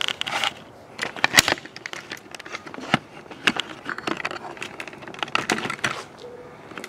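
Irregular sharp clicks and knocks of a hand-held camera being carried and set down, with footsteps on concrete.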